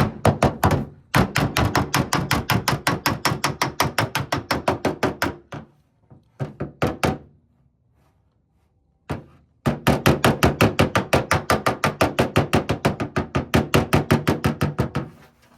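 Cured body filler (Bondo) on a car panel being sanded with rapid back-and-forth strokes, about nine a second. The strokes come in two long runs with a short pause between them, taking a small line out of the filler.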